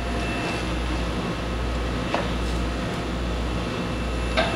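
Kellenberger 1000U universal cylindrical grinder running with a steady low machine hum. A light click comes about two seconds in and a short clatter near the end.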